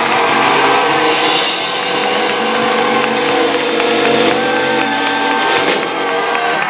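Live band holding a sustained chord while the drummer crashes cymbals and hits the drum kit in a closing flourish. The held chord stops shortly before the end as the song finishes.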